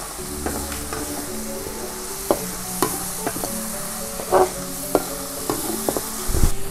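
Chilli spice paste sizzling in an aluminium wok while a metal spatula stirs it, scraping and tapping against the pan at irregular moments, hardest about midway and near the end.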